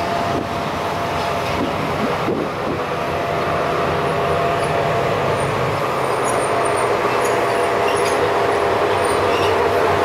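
Electric locomotive running light, rolling slowly along a station platform: a steady hum with a held whine, growing louder as it comes closer.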